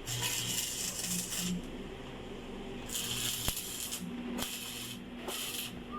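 Electric arc welding: the arc sizzles and crackles in bursts of about one to one and a half seconds, stopping and restarting several times.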